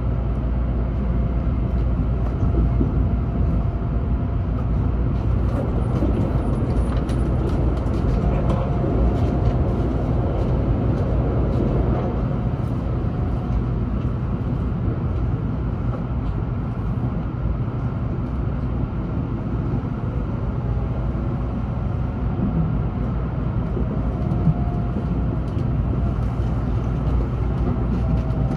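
Tokaido Shinkansen Nozomi heard from inside the passenger car at speed: a steady low rumble of running noise, with faint whining tones coming and going.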